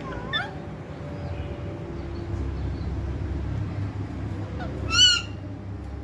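A parakeet calling: a short call right at the start, then one loud, harsh screech about five seconds in, over a steady low background rumble.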